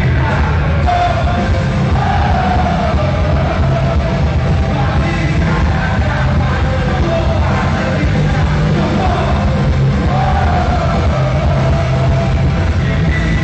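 Live rock band playing loudly: electric guitar, bass and drums under a sung vocal line.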